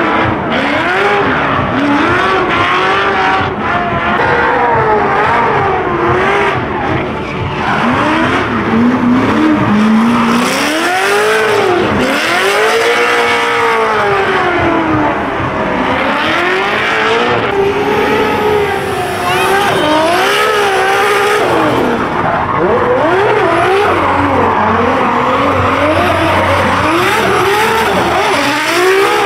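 Formula Drift cars drifting: high-revving engines rise and fall in pitch again and again as the throttle is worked, with tires squealing and skidding.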